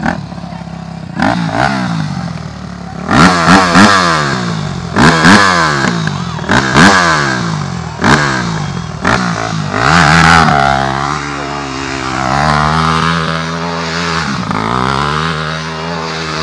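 Dirt bike engine revved in a series of sharp throttle blips, about six, each rising and dropping back in pitch. It is then held at higher, wavering revs for the last several seconds as the bike slides round and the rear wheel spins in the dirt.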